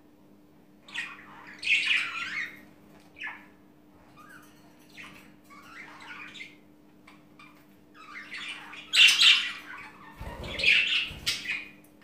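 Budgerigars chirping and squawking in short irregular bursts, loudest near the end.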